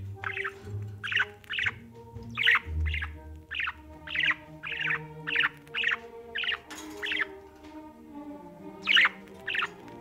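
Budgerigar chirping: a quick series of short, sharp chirps, about two to three a second, with a short pause before two louder chirps near the end.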